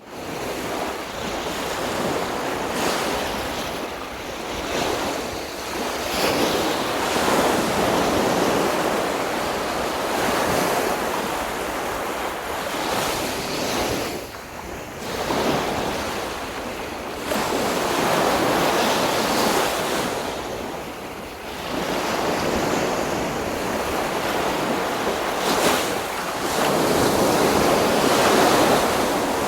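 Sea surf breaking and washing up a beach, a continuous rush that swells and eases every several seconds.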